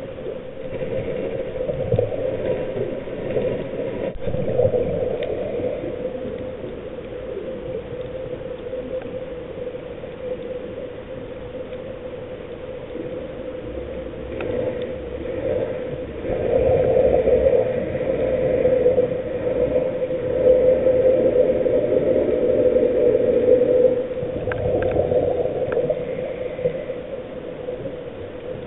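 Underwater sound heard through a diving camera's housing: a steady humming drone with rushing noise that swells and fades, louder for several seconds about two-thirds of the way through.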